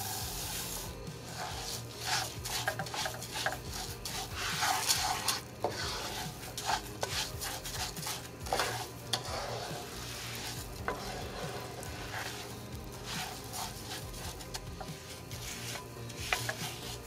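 Uncooked white rice poured into melted butter and oil in a nonstick skillet, then stirred with a wooden spoon: an irregular rustling and scraping of grains against the pan over a light sizzle, as the rice is coated before browning.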